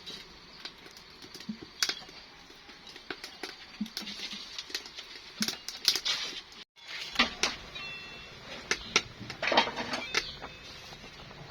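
Food-preparation handling noises: scattered light clicks and knocks with a few short scraping, rustling sounds, and a sudden break in the sound about two-thirds of the way through.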